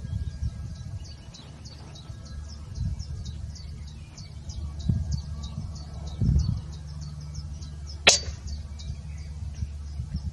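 A PCP air rifle fires a single sharp shot about eight seconds in. A steady series of short, high chirps, a few each second, runs throughout, over a low rumble.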